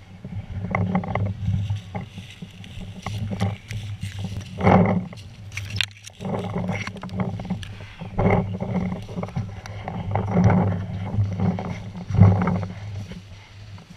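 Leaves and brush rustling and crunching with repeated irregular thuds as someone pushes through dense woodland undergrowth, with a few sharp clicks about three to six seconds in.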